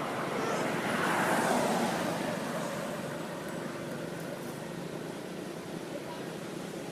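A road vehicle passing, its noise swelling about a second in and fading away over the next couple of seconds, over a steady background of traffic noise.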